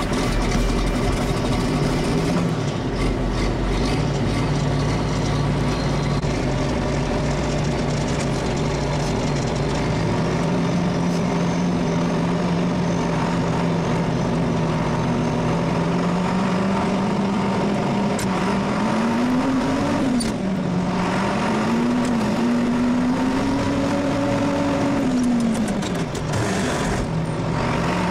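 John Deere farm diesel engine running, its speed creeping up slowly, then rising and dropping back several times in the last ten seconds or so.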